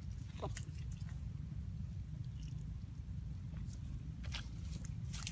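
Steady low rumble with a few brief scattered rustles and clicks as a woven bamboo basket trap is handled and left standing in dry grass.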